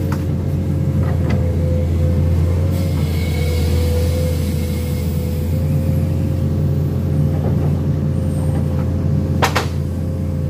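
Komatsu PC210 excavator's diesel engine running under heavy load with a deep steady drone and a steady hydraulic whine, as the machine strains to shift a loaded land pontoon stuck in mud. A single sharp knock sounds near the end.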